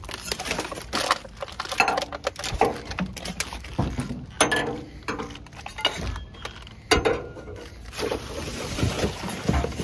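Rummaging through construction debris in a dumpster: irregular knocks, clatter and rustling as paper cement bags, wood and other junk are shifted around by hand.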